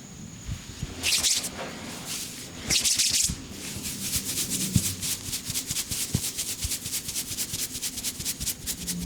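Head massage by hand: two brief rubbing strokes through the hair, then from about a third of the way in a fast, even patter of hand strokes on the head, about seven a second, like a shaken maraca.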